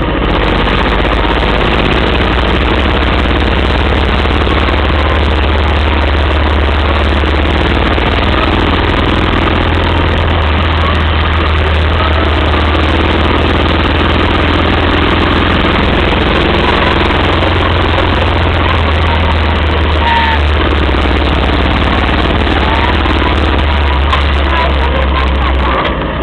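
Moto Guzzi sidecar outfit under way, heard from inside the sidecar: a steady, loud run of engine and wind noise with a strong low rumble, dipping briefly near the end.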